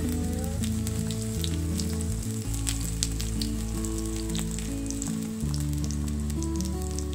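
Pastry strips frying on a hot stainless-steel pan, with a steady sizzle and a dense crackle of fine pops throughout.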